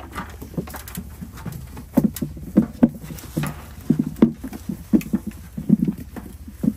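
Stone fruit being hand-picked and dropped into a picker's plastic picking bucket: an irregular run of short dull thuds, several a second in clusters, with leaves rustling.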